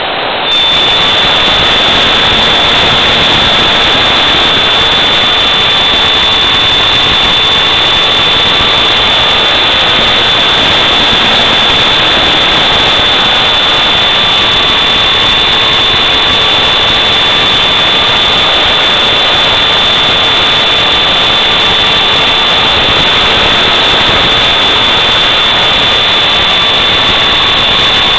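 Electric motor and propeller of an FPV model aircraft in flight, heard from on board: a loud, steady rush of noise with a motor whine that wavers slowly up and down in pitch, over a constant high-pitched whine.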